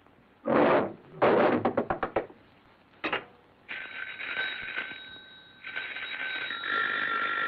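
Wall-mounted telephone bell ringing steadily from about halfway through, with a short break in the middle. A few short bursts of noise and a click come before it.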